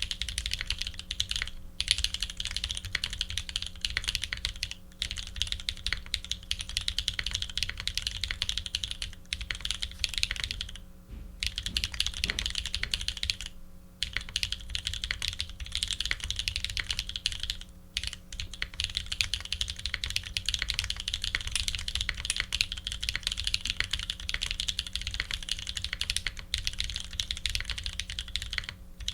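Continuous typing on a custom F1-8X mechanical keyboard with lubed New Holy Panda tactile switches, PBT keycaps and an aluminium plate, a dense stream of key clacks broken by a few short pauses.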